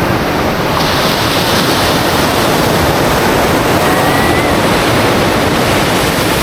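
Ocean surf: a loud, steady rush of breaking waves, with wind buffeting the microphone.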